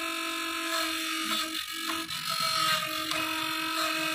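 Microtek 825 inverter buzzing steadily while it charges, with a crackling rustle of its plastic insulation sheet in the middle. The owner puts the noise down to the cut sheet on the heat sink fouling and even stopping the cooling fan.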